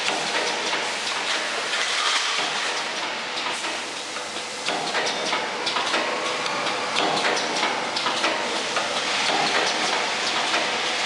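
Automatic clothes peg assembly machine running: its vibratory bowl feeders and assembly mechanism make a steady, dense clatter of many fast small clicks.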